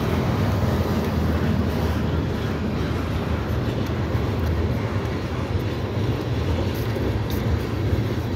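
Freight train of hopper and tank cars rolling past, a steady low rumble.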